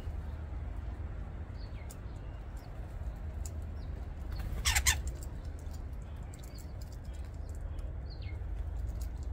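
Garden birds at a feeder: one loud, harsh call a little under halfway through, among a few short, faint chirps, over a steady low rumble.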